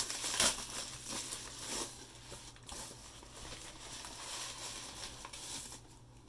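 Plastic poly mailer bag crinkling and rustling as hands reach in and pull the contents out. It is louder in the first couple of seconds, then softer.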